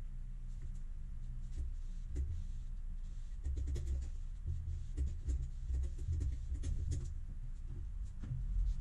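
Cloth rubbed hard over a freshly laid laminate sheet to press it onto contact cement, a run of short scratchy rubbing strokes with light handling knocks, over a steady low hum.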